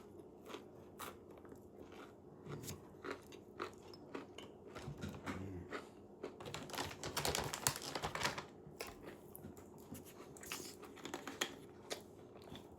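Crunchy chicken strips being bitten and chewed: a run of short crisp crunches, thickest a little past the middle.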